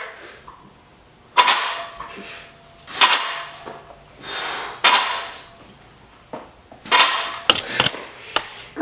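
A man lifting a barbell through bench-press reps, breathing out hard once per rep, about one breath every one and a half seconds. A few light clicks come near the end.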